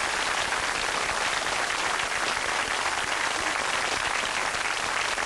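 A studio audience applauding, with many hands clapping at a steady level.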